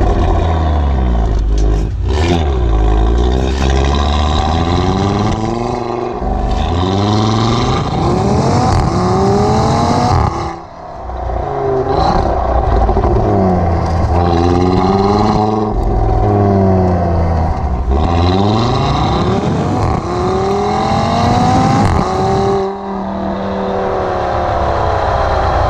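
2018 Audi TT-RS's 2.5-litre turbocharged five-cylinder heard close at the tailpipe of its Audi Sport exhaust, revving up in repeated pulls, each ending in a sudden drop in revs as it shifts gear. There is a brief lift-off about ten seconds in.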